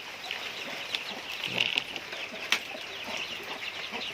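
Chickens clucking and calling in short, high, repeated notes, with a single sharp tap about two and a half seconds in.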